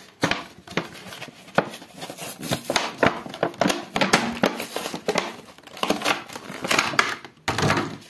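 Boxed doll packaging being handled and turned over in the hands, crinkling and crackling with many quick sharp clicks.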